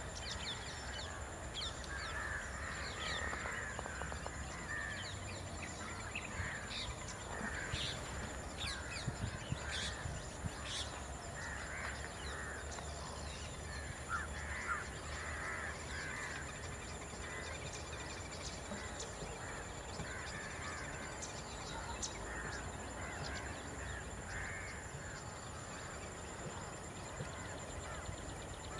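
Crows cawing repeatedly among other bird calls, over a thin, steady high-pitched whine.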